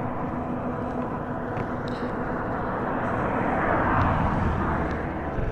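Forte 250 motorcycle running at road speed: a steady engine hum mixed with wind and road noise. It swells about four seconds in and eases near the end.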